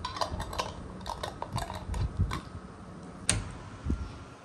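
Light clicks and clinks of a fork against a glass olive jar and a plastic plate, with a sharper single click about three seconds in.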